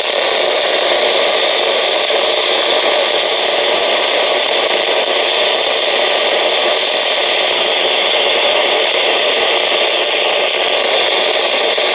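Steady hiss of radio static from a receiver: the signal has faded out and the broadcast voice is lost under the noise.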